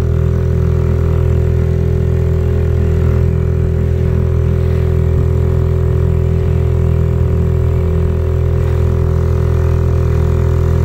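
Small outboard motor on a dinghy, running steadily at an unchanging speed while under way.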